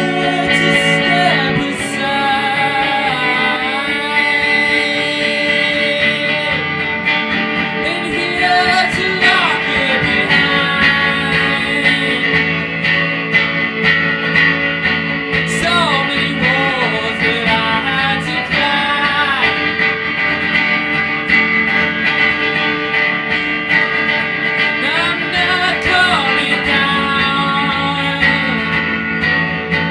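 Song on a Fender electric guitar: sustained, ringing chords with a man's voice singing wordless, gliding vocal lines over it at several points.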